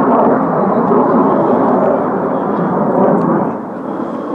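Jet noise from a formation of Aermacchi MB-339 trainers and their Rolls-Royce Viper turbojets flying overhead: a steady rushing rumble that drops a little about three and a half seconds in.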